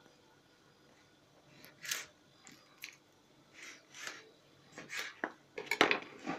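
Kitchen knife cutting fresh green beans on a plastic cutting board: a string of short, sharp cuts and taps at irregular spacing, starting about a second and a half in, with a quicker, louder cluster just before the end.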